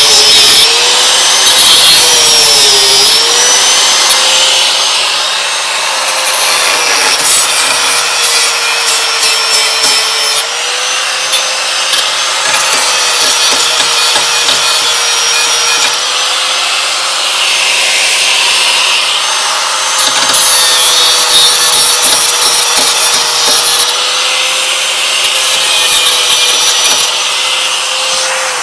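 Angle grinder with a cutting wheel running steadily and cutting into steel as it grinds off the raised lumps holding the old lower ball joint in the front suspension arm. Its pitch dips briefly each time the wheel bites harder, and it starts to wind down at the very end.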